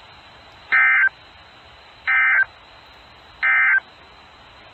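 EAS end-of-message data bursts over NOAA Weather Radio: three short, harsh digital bursts of warbling tones about a second and a third apart, over steady radio hiss, closing the severe thunderstorm warning.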